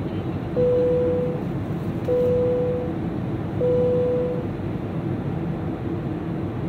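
Steady hum of a Boeing 737-500 airliner cabin, with a steady electronic beep sounding three times in the first half, each under a second long and about one and a half seconds apart.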